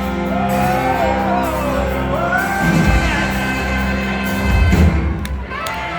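Live band music with a voice singing a gliding melody over steady bass, echoing in a large hall, with heavy drum hits about three and five seconds in.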